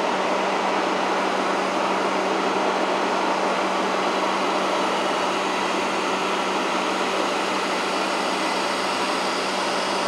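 Jisiwei I3 robot vacuum running: the steady whir of its suction fan and brushes, with a low, even hum beneath it.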